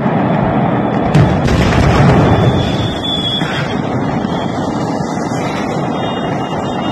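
Fireworks factory explosion: a sharp blast about a second in, then a long, loud, low rumble as the blast rolls on.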